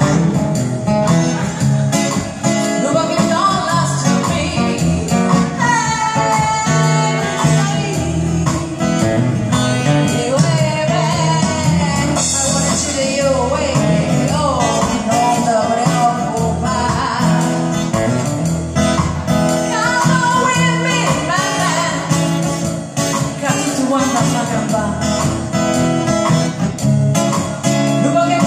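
A live band playing a song: a woman singing into a microphone, backed by acoustic guitar and keyboard.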